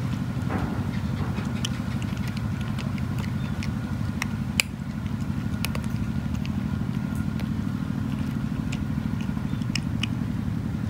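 A cat crunching dry kibble: scattered sharp crunches, one much louder about four and a half seconds in, over a steady low mechanical drone like a running engine.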